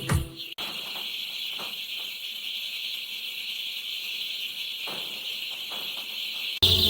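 A dense chorus of many baby chicks peeping together, a steady high-pitched din. It grows louder near the end.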